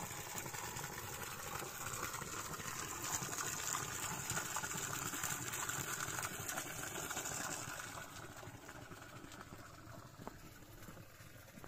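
Water running steadily out of a plastic pipe into a pool. It is louder in the middle and fades after about eight seconds.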